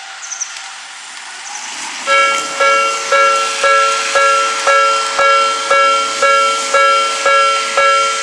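Japanese railway level-crossing alarm starting up about two seconds in: a ringing chime struck about twice a second, the warning that a train is approaching. Before it starts there is only a steady background hiss.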